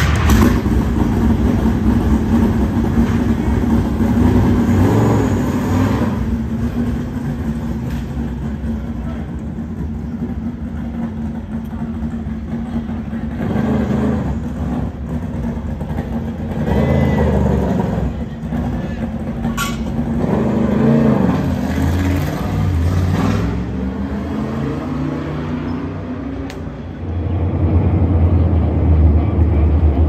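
Garage-area din with a steady hum and some voices, then, about 27 seconds in, the loud rumble of the pack of NASCAR Cup cars' V8 engines going past on the track.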